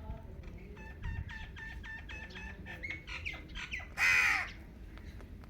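Indian ringneck parakeet calling: a quick run of short repeated chirps, about five a second, then a few falling notes and a loud, harsh screech about four seconds in.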